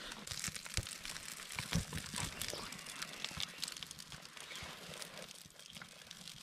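Freshly lit campfire of split kindling and dry grass crackling, with a few dull thumps in the first two seconds.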